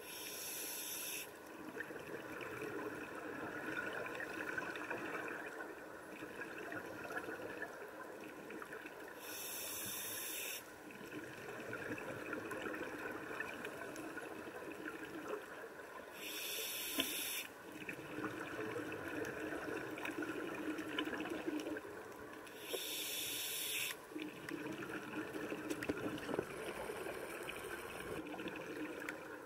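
A scuba diver breathing through a regulator heard underwater: four bursts of exhaled bubbles, each about a second and a half long and roughly 7 s apart, with a softer hiss and bubbling in between and a fine crackling throughout.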